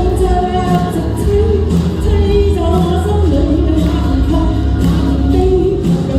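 Live singing of a Chinese pop song over a backing track with a steady bass beat, in a large hall.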